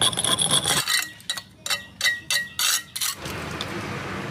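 A metal hand tool scraping and knocking against the inside of a cement firewood stove, chipping away at it: a rough scrape, then a run of sharp, slightly ringing knocks. From about three seconds in, a steady hiss takes over.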